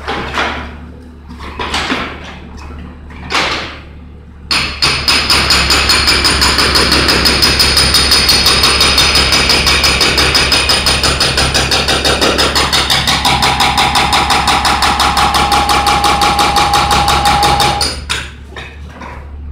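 Hydraulic breaker on a Cat mini excavator hammering into a concrete floor: a rapid, even stream of blows that starts about four and a half seconds in and stops shortly before the end, with a steady ringing tone joining in the second half. A few short separate bursts come before it, and the excavator's diesel engine hums underneath throughout.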